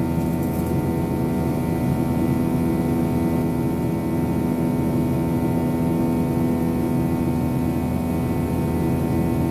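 Steady in-cabin drone of a Boeing 737-800 in flight: its CFM56-7B turbofans running at a constant setting, several steady tones over an even hiss of airflow.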